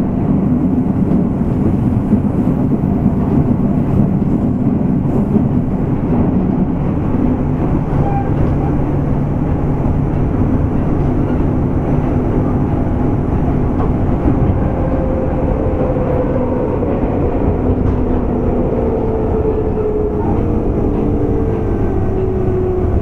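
Running sound heard inside the motor car of a JR West 201-series chopper-controlled electric train: a steady rumble of wheels on rail and motor noise. Over the second half, a tone falls steadily in pitch.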